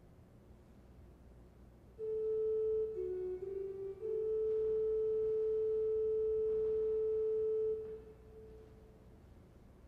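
Pipe organ playing a soft flute-like stop: a short note, two slightly lower short notes, then one long held note for about four seconds. It starts about two seconds in and fades away near the end.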